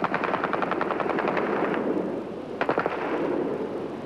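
Bursts of automatic gunfire: a long rapid burst of about two seconds, then a shorter burst about two and a half seconds in.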